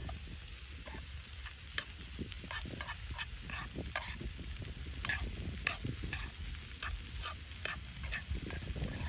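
Food frying in a pan: a hissing sizzle with irregular crackles and pops.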